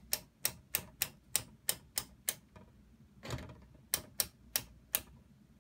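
Stepped voltage selector switch on a Heathkit IT-11 capacitor checker clicking from detent to detent, about three sharp clicks a second, as the leakage-test voltage is raised toward 600 volts. There are eight clicks, a pause with a brief soft noise, then four more clicks near the end.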